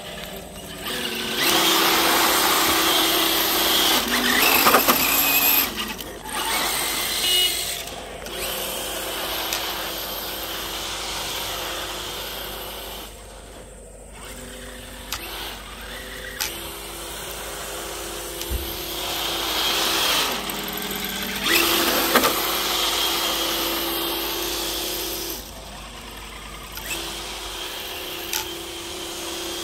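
Traxxas TRX-4 RC crawler's Hobbywing Fusion Pro brushless motor and drivetrain whining as it is throttled in bursts, the pitch stepping up and down. The loudest bursts come a couple of seconds in and again about two-thirds through.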